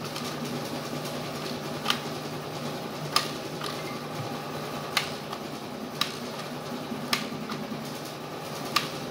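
Silvercrest SECM 12 B4 ice cream maker's mixer motor running steadily and turning its plastic paddle, with a sharp click every second or so. The motor is working again after the repair.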